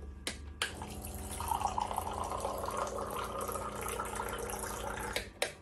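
Electric pump on a five-gallon water bottle running with a low hum while water streams from its spout into a drinking glass. The pour starts about half a second in and cuts off shortly before the end.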